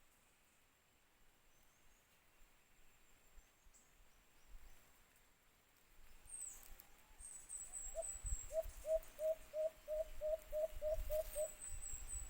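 White-eared brown dove calling: a run of about a dozen short, evenly spaced hoots, roughly three or four a second, in the second half. Thin high chirps sound above it, with low rumbling noise underneath.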